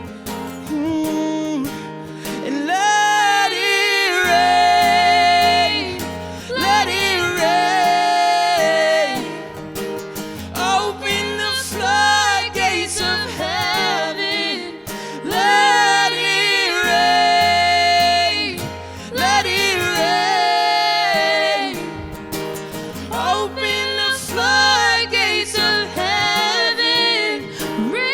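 Worship music: a voice singing long, held phrases over strummed guitar and a low bass line.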